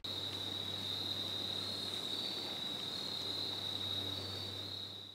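A steady high-pitched insect trill over a low hum. It cuts in abruptly and fades out near the end.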